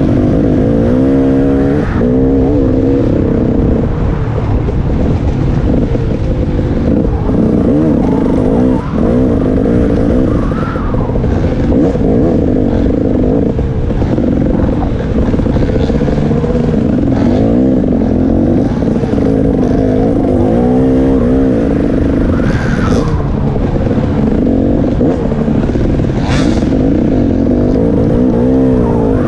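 Two-stroke engine of a KTM 300 XC-W dirt bike, heard from on board, revving up and down again and again as it is ridden hard along a trail.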